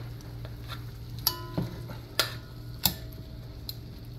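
Metal tongs clinking against a large aluminium pot as seared beef steaks are turned over: four sharp clinks, the first with a brief ring, over a steady low hum.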